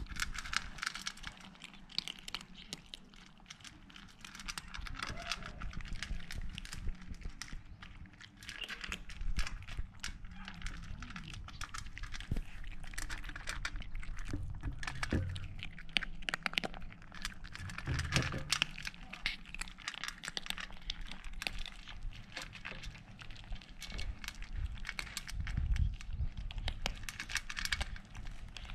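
Three kittens crunching dry cat kibble from an enamel plate, close up: a dense, continuous patter of small crunches and clicks, with a few dull low thumps.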